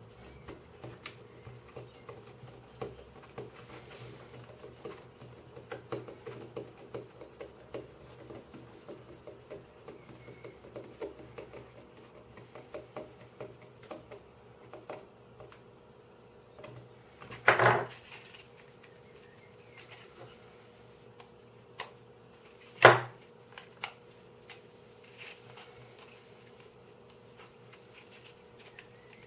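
Small clicks and scrapes of a screwdriver turning a screw into a 3D-printed plastic puzzle, a steady patter of little taps. Later come two sharp knocks about five seconds apart, the loudest sounds, as hard parts are knocked or set down on the wooden desk.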